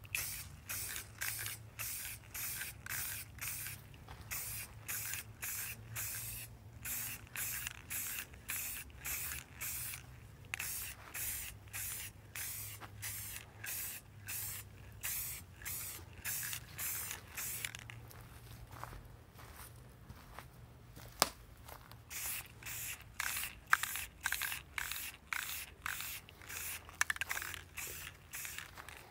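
Aerosol spray paint can hissing in short repeated bursts, about two a second, as light coats are sprayed in quick passes. Past the middle the spraying stops for a few seconds, broken by a single sharp click, then resumes.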